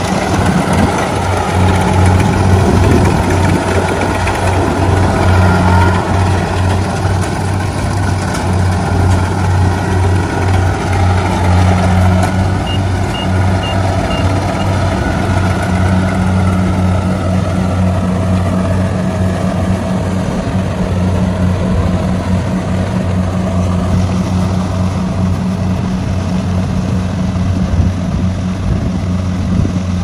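Rice combine harvester's diesel engine running steadily as it cuts and threshes rice, with a deep, even hum. About halfway through, four short high beeps sound in quick succession.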